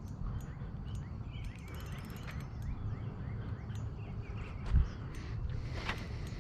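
Outdoor lakeside ambience: a steady low rumble with faint, short chirping calls scattered through, and one sharp thump a little under five seconds in.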